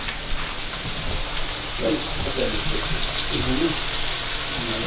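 Floured strips of deer heart frying in hot grease in a skillet: a steady sizzle.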